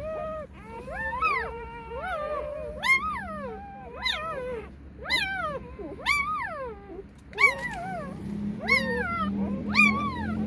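Newborn puppy crying: a run of high, thin squealing cries, about one a second, each rising and then falling in pitch.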